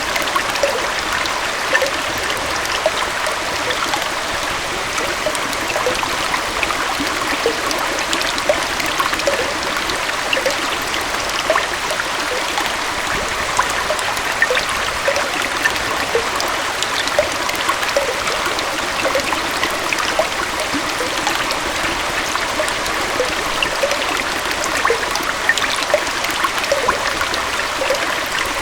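Small forest waterfall and stream flowing steadily: a constant rushing splash with many small bubbling plinks of water over rocks.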